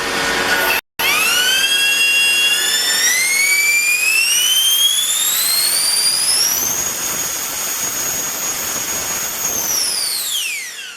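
A 120 mm all-metal electric ducted fan on a 14S battery spools up in steps to a high-pitched whine. It holds steady at full throttle for a few seconds, then spools down near the end.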